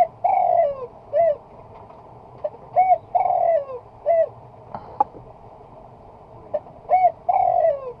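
A dove cooing a three-note phrase: a short hooked note, a longer falling note, then another short note. The phrase repeats three times about four seconds apart, with a single sharp click about five seconds in.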